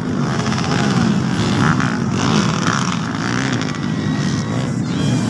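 Several motocross dirt bike engines running steadily as the bikes race around the track.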